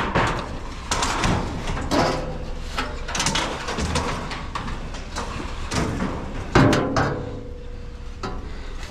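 Scrap metal pieces being handled and loaded: a run of knocks, clanks and rattles, with one sharp bang about six and a half seconds in followed by a brief metallic ring.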